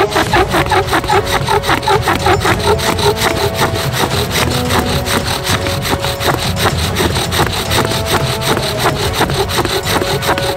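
Friction fire drill at work: a wooden spindle grinding against a wooden fireboard, driven in a fast, even back-and-forth rhythm of rasping strokes.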